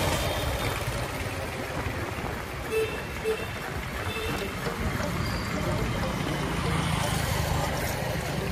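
Wind rushing over an action camera's microphone while riding a bicycle along a city road, with road and traffic noise underneath. Two short beeps about three seconds in.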